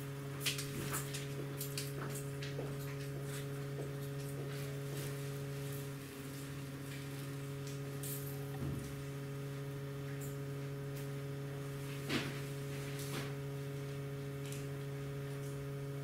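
Steady low electrical hum, with scattered light clicks and taps from handling, a cluster of them in the first few seconds and a sharper one about twelve seconds in.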